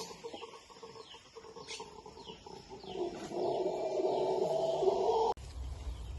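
Chickens clucking, with small birds giving short falling chirps; the sound cuts off abruptly about five seconds in.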